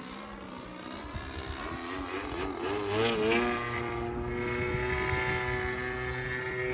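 Gasoline-engined radio-control 3D aerobatic airplane flying. Its engine and propeller note wavers and is loudest as it passes close about three seconds in, then holds a steady high pitch.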